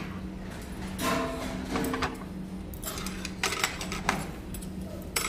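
Scattered light clicks and clinks of metal chopsticks and bowls being handled on a meal tray, a few more of them near the end, over a steady low hum of room noise.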